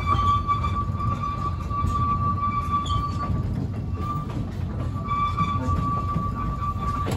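A train rolling slowly over yard track, heard from aboard a passenger coach: a low rumble of wheels on rail with a high, steady wheel squeal. The squeal fades out about three and a half seconds in and returns about five seconds in.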